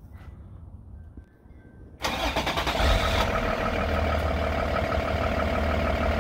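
Cummins diesel engine in an International truck starting about two seconds in and settling into a steady idle after its oil change.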